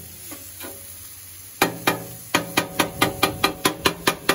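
Shaved steak sizzling on the steel top of a Blackstone flat-top griddle. About a second and a half in, a metal cleaver starts chopping the meat against the steel, giving a fast run of sharp clanks, about five a second.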